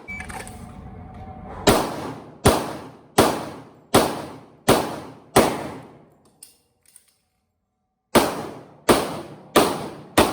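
Rapid pistol fire from an S&W M&P40 in .40 S&W: six shots about three-quarters of a second apart, each with a ringing echo tail. Then a pause of about two seconds and three more shots at the same pace.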